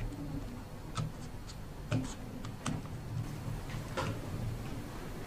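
Scattered small clicks and taps of plastic wire connectors and cables being handled and plugged onto a robot's control board, about a dozen irregular clicks over a faint steady low hum.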